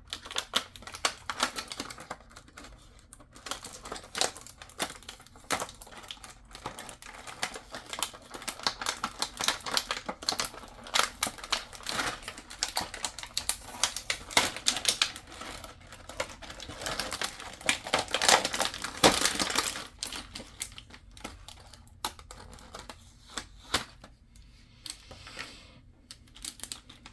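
Model kit parts being unpacked and handled: rapid irregular clicks and rattles of small plastic pieces and packaging, with a louder stretch of rustling about two-thirds of the way in.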